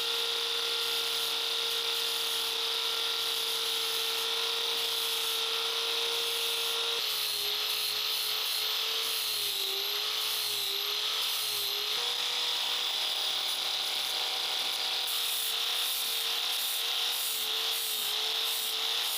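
Electric power tool running continuously with a steady motor whine and hiss. Its pitch shifts a few times and wavers for a while in the middle, as if under changing load.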